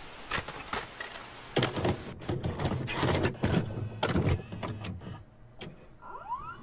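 A videocassette recorder's tape mechanism makes a run of mechanical clicks and clunks, with heavier thumps about two to four seconds in. A short rising whir follows near the end as the deck starts to play.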